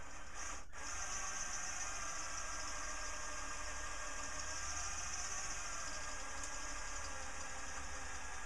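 Handheld electric drill running with a twist bit boring a starter hole through the steel side of a keg, a steady whirring grind. It drops out for an instant under a second in, then carries on evenly.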